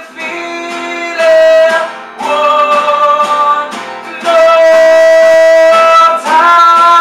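Two acoustic guitars strummed together while a man sings in long held notes, the longest lasting about a second and a half midway through.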